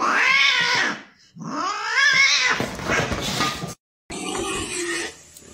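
Cat meowing in long, drawn-out cries that rise and fall in pitch, two in a row, followed by a rougher, noisier stretch and a brief break. These are the cat cries played to see whether a pet cat comes running.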